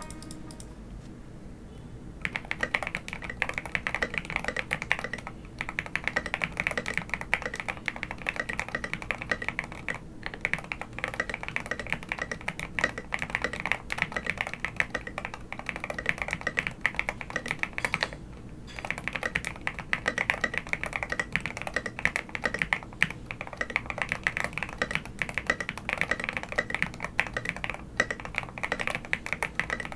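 Steady typing on a KBD75 v3.1 mechanical keyboard with stock DLKeys x Zuoce Smoothie switches, a brass plate with plate foam and PGA-profile keycaps, giving a thocky keystroke sound. The typing starts about two seconds in and runs in fast runs of keystrokes with a few brief pauses.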